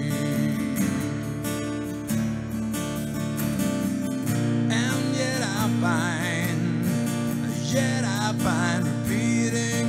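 A man singing live to his own strummed acoustic guitar, the voice wavering with vibrato; the singing grows stronger about halfway through over steady guitar chords.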